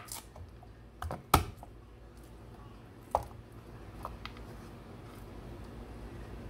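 Chef's knife knocking and cutting on a wooden cutting board as garlic cloves are cut: about six sharp knocks at uneven intervals, the loudest about a second and a half in, the later ones fainter.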